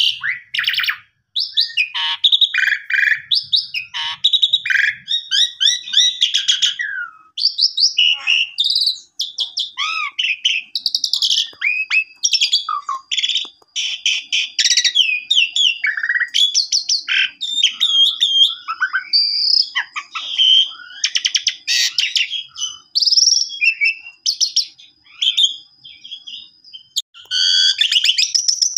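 Asian pied starling in full, energetic song: a fast, unbroken run of varied chirps, rasping notes and whistles with short pauses between phrases.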